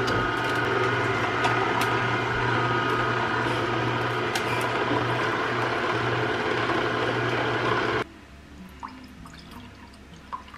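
Vertical slow masticating juicer running, a steady motor hum with grinding as it presses lemon and ginger. It cuts off suddenly about eight seconds in, leaving a few faint clicks and trickles.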